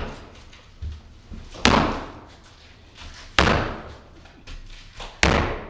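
Sledgehammer blows on tile covered with a towel to stop flying shards: three heavy strikes about two seconds apart, each with a short ringing tail, cracking up the tile. Lighter knocks fall between the blows.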